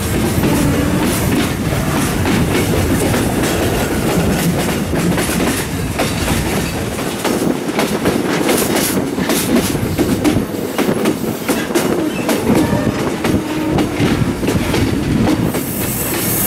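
Passenger train running along the line, heard from beside the carriage: a steady rumble of wheels on rails with rapid clicking and clattering over the rail joints. A brighter hiss grows near the end.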